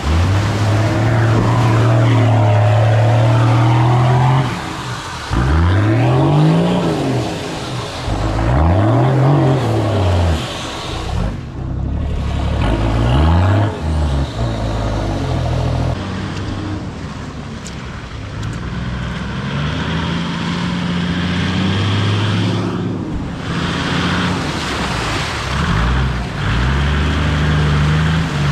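Toyota Land Cruiser 4WD engines revving up and easing off several times, the engine note rising and falling, as they push through deep mud and water. Muddy water splashes and sloshes around the tyres.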